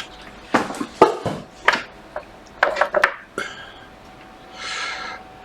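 Sharp clicks and clatter of small hard objects being handled on a workbench, in a few quick clusters, as a charger plug and meter probes are put in place; a short soft hiss near the end.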